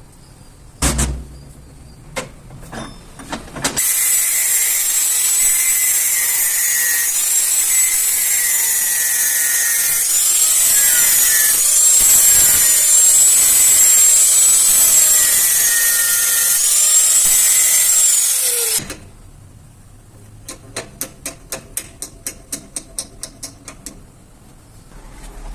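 A power tool runs for about fifteen seconds, its pitch wavering up and down, then stops suddenly. A few knocks come before it, and after it a quick run of sharp clicks, about four a second.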